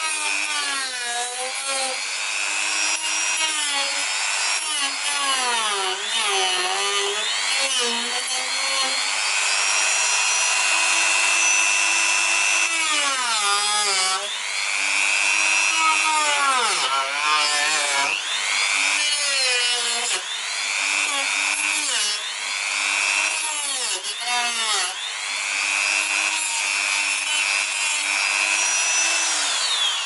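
Dremel rotary tool spinning a 409 cut-off wheel through a plastic screwdriver handle: a high-pitched motor whine that drops in pitch again and again as the wheel is pressed into the plastic and bogs down, then recovers each time.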